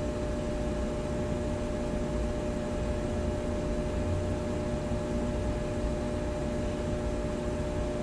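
Room tone of a large machine shop: a steady electrical transformer buzz made of several held tones, over an even hiss and a low rumble of distant traffic.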